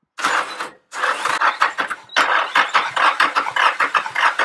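Nissan SR20DE four-cylinder engine cranking on its starter without catching, during a spark check with one plug out. A short burst of cranking is followed by a brief pause, then steady, rapid cranking from about a second in.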